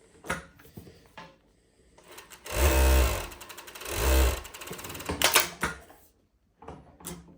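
JACK K5-UT-01 cylinder-arm coverstitch industrial sewing machine stitching fast for about two and a half seconds, its motor surging twice. Then come sharp clicks as the automatic thread trimmer cuts and the presser foot lifts, with a few lighter clicks before and after.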